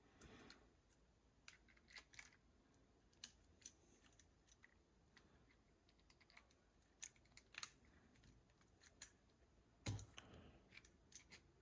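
Near silence with scattered faint clicks and taps of small saw parts being handled, a small cluster of them about ten seconds in.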